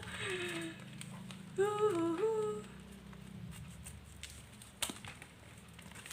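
A young woman humming a few short melodic phrases, twice in the first half, then faint packaging rustles with a sharp click in the second half.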